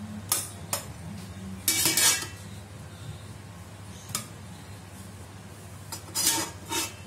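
Serving utensils knocking and scraping against a stainless steel pot as cooked stuffed vegetables are lifted out: scattered clinks, with a louder cluster about two seconds in and another near the end. A steady low hum runs underneath.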